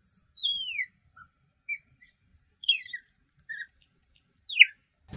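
Asian small-clawed otter squeaking: a string of short, high-pitched chirps, several falling in pitch, the loudest near the end.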